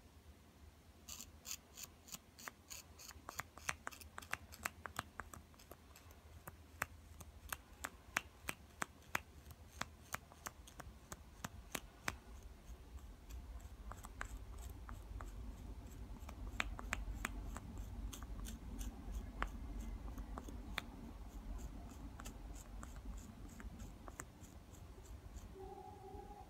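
A steel tool scraping the end of oboe cane in short, sharp strokes, several a second, to thin the cane end before tying on. The strokes thin out towards the end into a softer rubbing.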